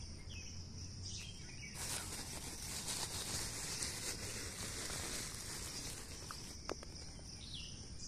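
Faint outdoor ambience: a steady high-pitched insect drone with a few short faint bird chirps. A stretch of even hiss rises about two seconds in and fades about six seconds in.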